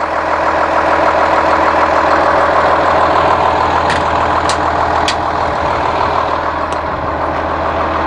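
Cummins ISC 8.3-litre diesel engine of a Blue Bird All American bus idling steadily, with a few sharp clicks around the middle.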